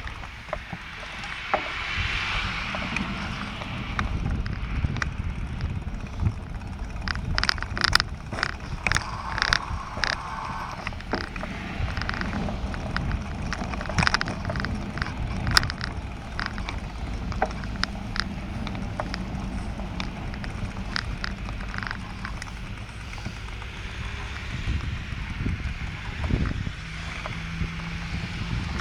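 Riding a bicycle: a steady rumble of tyres and wind on the microphone, with a run of sharp rattles and knocks in the middle as the bike goes over bumps and kerb edges.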